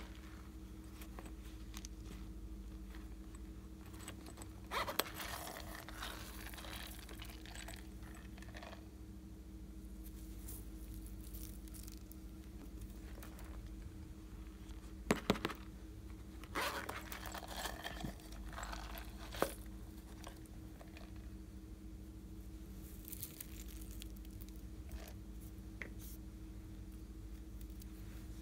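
Hands handling silicone pop-it bear purses: scattered short scrapes, rustles and a few sharp clicks, over a faint steady hum.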